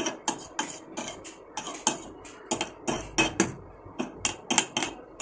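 A steel spoon clinking and scraping against the rim and sides of a small stainless steel pan of simmering milk tea. It gives irregular sharp clicks, about three or four a second, as the dried tea skin is pushed back down into the pot.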